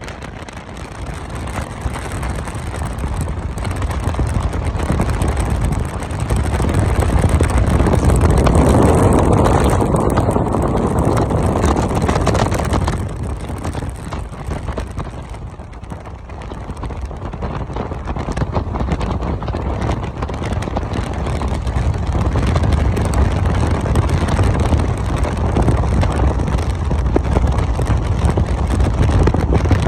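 Car driving at speed: steady road and wind noise, swelling louder about seven seconds in and easing back around thirteen seconds before building again.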